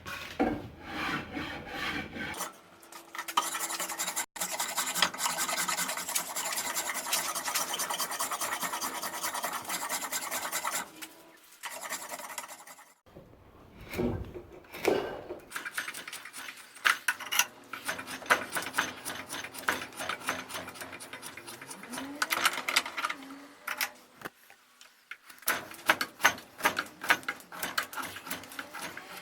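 Rasping, scraping strokes of a hand tool on steel, in long stretches broken by a few short pauses.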